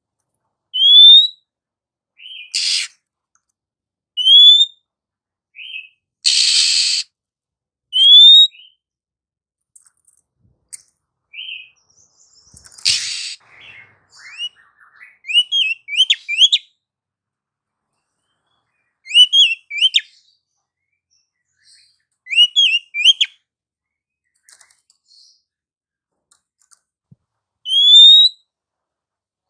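Female oriental magpie-robin calling: a clear rising whistle repeated every few seconds, mixed with a few short harsh rasping notes. In the middle come quick runs of whistled notes.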